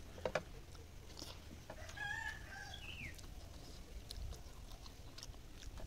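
A chicken calls once about two seconds in, a short pitched note followed by a quick falling one, over a few faint clicks of fingers mixing rice on a metal plate.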